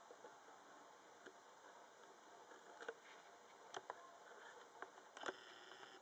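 Faint scratching and scrabbling of a teddy bear (long-haired Syrian) hamster's claws in bath sand and on a plastic bowl, with a few short clicks in the second half. The sharpest click comes near the end as it climbs over the rim.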